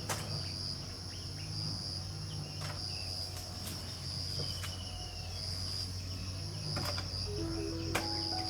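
Insects chirping in a high, pulsing rhythm, about one pulse a second, over a steady low hum. Several sharp clicks are scattered through it.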